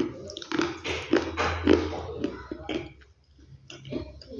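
Chunks of dry clay being crunched and crumbled: a quick series of crisp, gritty crunches, with a short lull about three seconds in.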